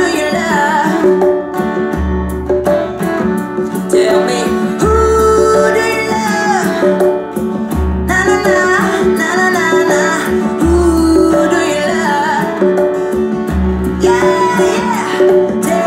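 A song with singing and guitar played through Kenwood S-9M hi-fi speakers and a Kenwood SW-7 active super woofer, with a deep bass note sounding about every three seconds.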